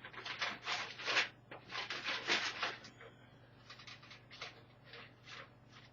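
Hands handling the front-panel connector cables inside a PC case: a quick run of short rubbing, rustling strokes for about three seconds, then fainter, scattered brushes.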